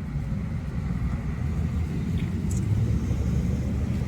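A steady low rumble that grows a little stronger in the second half.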